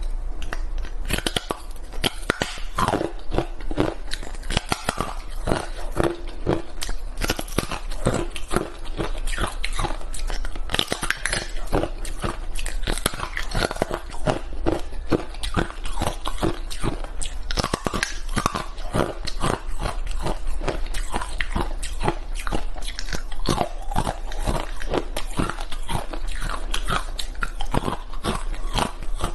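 Hard frozen ice being bitten and chewed: dense, irregular crunching and cracking.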